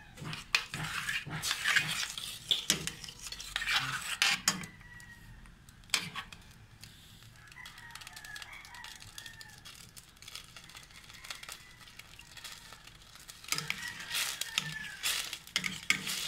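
Spatula stirring and scraping around a stainless steel pan of thin, cornstarch-thickened sauce, with repeated clinks and scrapes of metal on the pan. The stirring is busy for the first few seconds, goes quiet for a long stretch in the middle and picks up again near the end.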